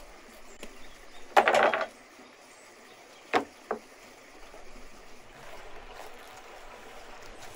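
A brief loud crackling rustle, then two sharp knocks about half a second apart as a head of cabbage is set down on a wooden cutting board. A steady rush of running water continues in the background.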